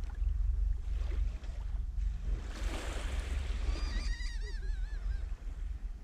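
Small sea waves lapping and washing onto a sandy shore, with wind rumbling on the microphone. A bird calls in a wavering series about midway through.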